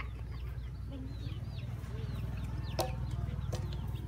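Chick peeping over and over in short, high, falling peeps, with a few lower clucks from chickens, over a steady low hum. A sharp click sounds a little before three seconds in.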